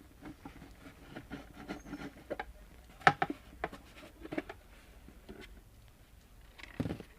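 Irregular small clicks, taps and scraping as a mixer grinder's plastic housing is handled and unscrewed to be opened from the back, with one sharper click about three seconds in.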